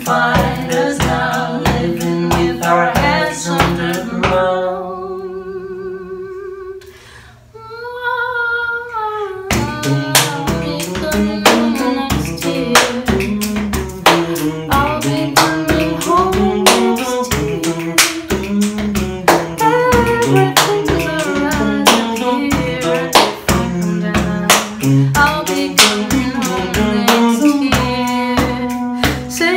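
Two voices singing a duet over a beat of hand claps and body percussion. About four seconds in, the percussion drops out, leaving one voice holding long wavering notes. The claps come back about nine and a half seconds in.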